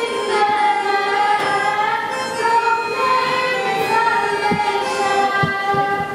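Children's choir singing a hymn together, with long held notes that slide from pitch to pitch.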